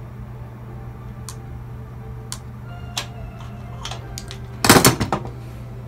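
Scattered light clicks of wires and hand tools being handled against metal electrical junction boxes and conduit, with one short, loud clatter about three-quarters of the way through.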